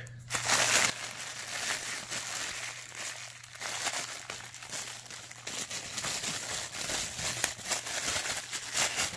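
Thin clear plastic wrapping crinkling and crackling as it is pulled and crumpled by hand to free a pair of sunglasses, with a louder burst of crinkling about half a second in.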